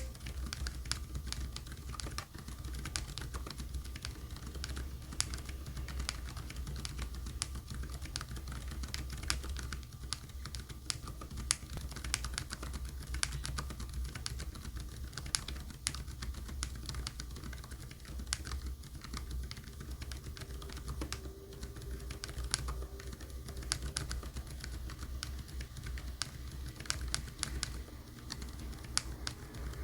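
Steady typing on a mechanical keyboard fitted with Outemu Jade Yellow silent switches: a quick, irregular run of soft keystroke clicks.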